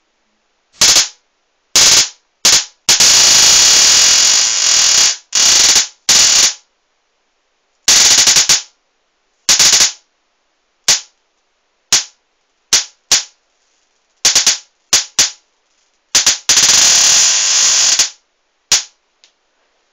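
High-voltage arc from a ZVS-driven flyback transformer with a capacitor attached, crackling in loud, irregular bursts. Short snaps alternate with sustained runs of a second or two, and the crackle stops and restarts over and over.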